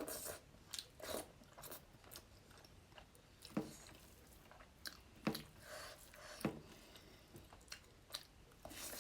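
A person chewing and biting food close to the microphone: irregular wet mouth clicks and a few sharper crunches.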